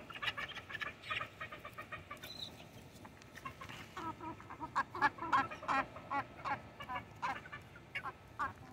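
Chickens clucking: many short calls repeated in quick runs, thickest near the start, in the middle and again near the end.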